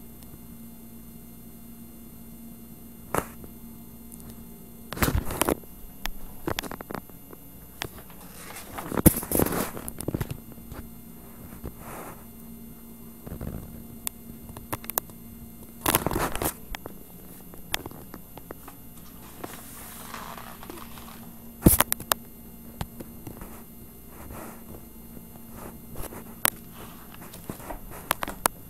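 Handling noise from a handheld camera: scattered knocks and rustles, the loudest about a third of the way in, at the middle, and again about three quarters through, over a steady low hum.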